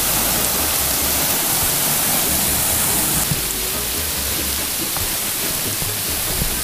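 Waterfall pouring into a rock pool, a loud steady rush of falling water and spray close at hand.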